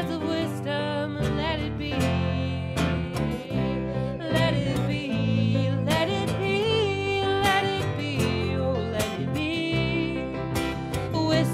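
Live acoustic music: a strummed acoustic guitar with a singing voice.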